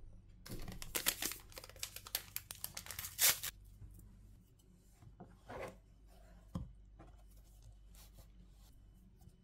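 Dry flour poured from a glass into a mixing bowl, a dense crackling rustle for about three seconds. Later a few knocks and faint scrapes as a fork mashes butter into the flour.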